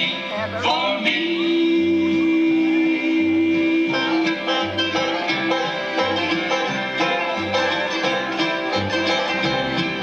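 Live bluegrass on banjo, mandolin and upright bass: a sung line ends on a long held note, and about four seconds in the band goes into a brisk instrumental break of fast banjo and mandolin picking over steady upright bass notes.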